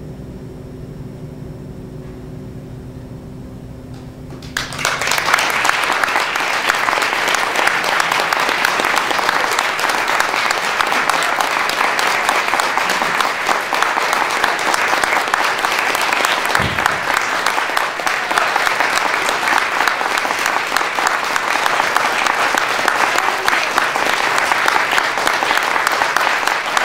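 A held piano chord rings for the first few seconds, then an audience starts clapping suddenly and keeps up steady applause.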